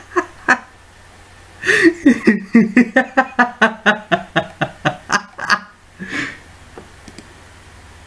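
A man's cartoon-voice laugh: a quick string of 'ha ha ha' beats, about five a second, that starts after a short pause and fades, with one last burst near the end.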